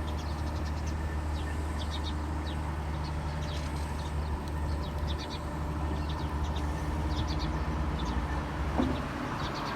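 A small bird chirping repeatedly in short high clusters, over a steady low engine-like hum that dies away near the end.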